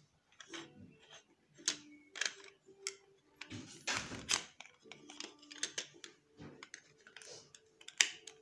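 Plastic Lego bricks and plates clicking and knocking together as they are handled and pressed into place, in an irregular run of sharp clicks, the loudest about eight seconds in.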